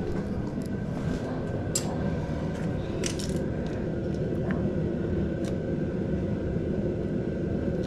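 A few light, scattered clicks and taps of small parts being handled while throttle cables are threaded into a motorcycle's handlebar throttle housing, over a steady background hum.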